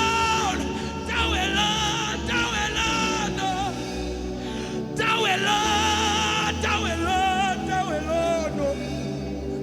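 Gospel worship music: a singer holds long, ornamented notes with vibrato and quick runs over a steady instrumental accompaniment, in two main phrases with a short break about halfway through.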